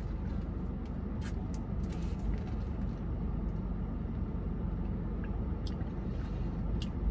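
Steady low rumble of a running car heard inside its cabin, with a few faint wet clicks of sipping boba through a wide straw and chewing tapioca pearls.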